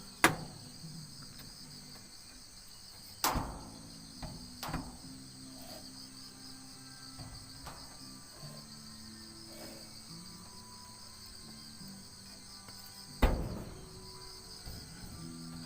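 Sharp knocks of installation work on cable tray and supports, probably metal being struck: a loud one just after the start, two smaller ones around three to five seconds in, and another loud one near the end. A steady high-pitched chirring, like crickets, runs underneath.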